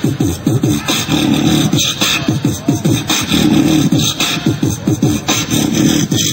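Beatboxing: a fast, continuous run of mouth-made kicks, snares and bass sounds in a hip hop rhythm.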